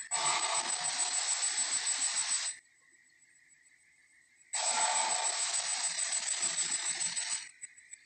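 Two long, rough Tyrannosaurus roar sound effects from an animated dinosaur film, each lasting about two and a half to three seconds, with a gap of about two seconds between them in which only a faint steady high whine remains.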